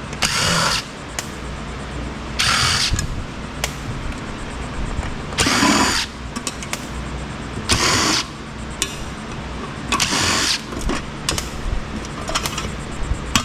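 Power drill-driver running in short bursts, about five over the stretch, while taking apart a 48-volt battery charger.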